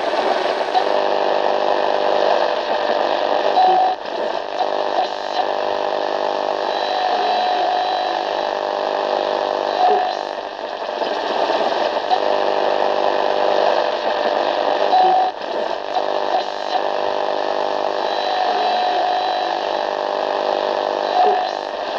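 Radio static: a steady hiss over a buzzing hum of many steady tones, with short whistling tones that come and go every few seconds.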